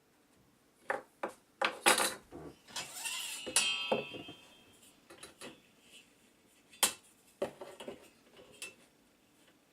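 Metal parts being handled on a workbench: a series of sharp clinks and knocks, with a scraping rattle and a short metallic ring about three seconds in.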